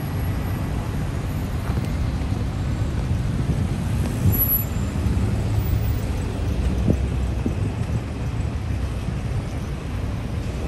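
Street traffic: a steady low rumble of passing road vehicles.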